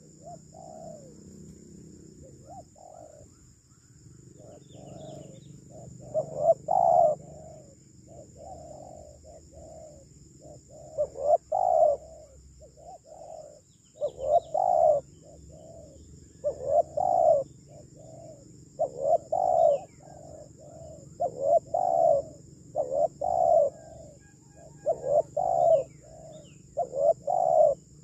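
Spotted dove (tekukur) cooing: short phrases of a few soft coo notes, repeated about every two to three seconds.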